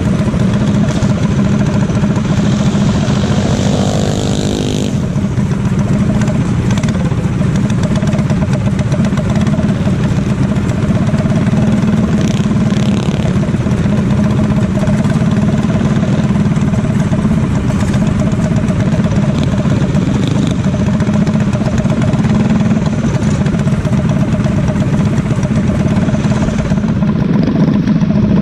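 Small single-cylinder mini bike engine running steadily at idle right under the camera, loud and even throughout. About three seconds in, another engine briefly revs up with a rising pitch.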